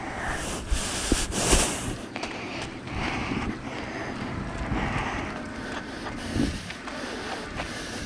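Footsteps crunching on gravel, with uneven rustle and hiss from a handheld microphone being swung about.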